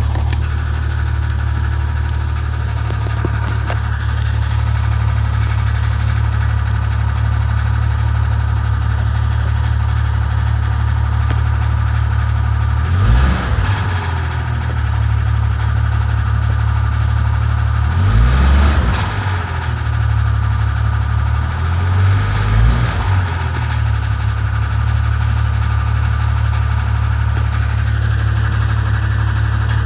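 4-litre engine of a 1994 Jeep Grand Cherokee idling steadily, revved briefly three times, about halfway through, a few seconds later, and again soon after. The owner says the engine is knocking.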